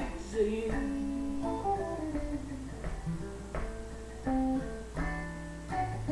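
Guitar playing a slow single-note blues lead. Notes are picked one at a time, roughly one or two a second, a few of them bent.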